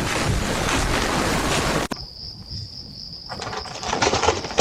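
Loud rushing storm wind that cuts off abruptly about two seconds in. After it comes a quieter outdoor night ambience with a steady, high, cricket-like trill and a few scuffling sounds.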